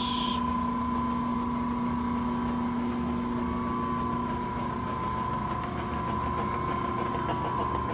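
Cincinnati press brake running idle: a steady motor hum with a constant high whine.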